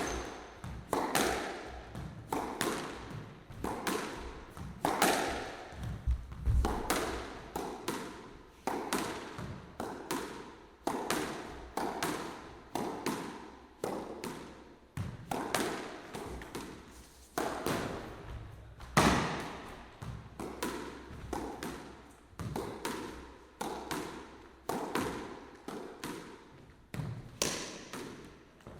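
Squash rally: a steady run of sharp smacks of racket on ball and ball on the court walls, about two or three a second, each ringing briefly in the enclosed court.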